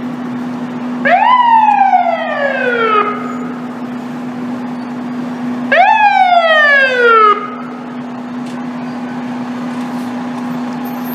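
Fire engine's mechanical siren wound up twice, each time rising quickly in pitch and then falling slowly over about two seconds, over a steady low hum.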